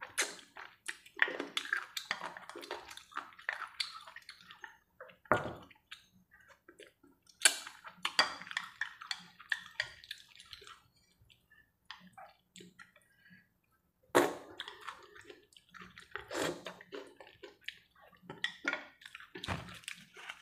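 Close-miked eating of chicken noodles: wet slurping and chewing in three bouts with short quiet pauses between them, and a single knock about five seconds in.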